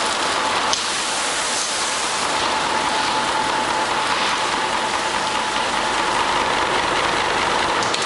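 Automatic carpet washing machine running: water spraying and splashing onto a rug on the wet conveyor, a steady hiss like rain, with a faint steady whine from the machine.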